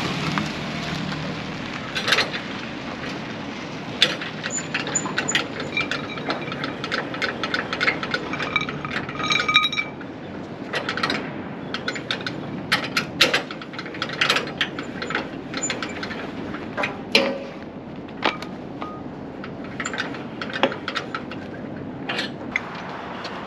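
A car passes close by at the start. Then comes a long run of sharp metallic clicks, clinks and knocks, some of them ringing, as a flatbed trailer's cargo strap is worked loose from its winch and rub rail.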